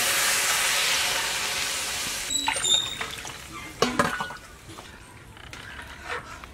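Hot water poured into a hot kadai of ghee-fried moong dal and rice, rushing and sizzling for about two seconds. Then a few ringing clinks, and a ladle stirring and scraping through the watery khichuri.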